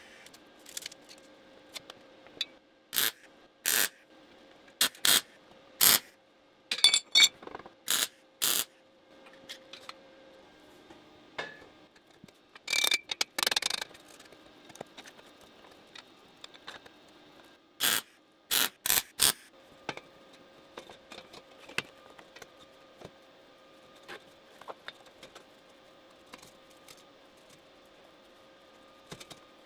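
Scattered sharp clicks and clanks of metal tools and parts being handled, some in quick runs, over a faint steady hum.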